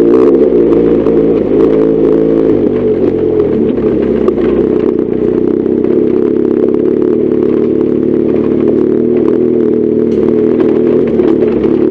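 BMW R1200GS Adventure's boxer-twin engine running under way; its pitch shifts up and down over the first few seconds, then holds steady.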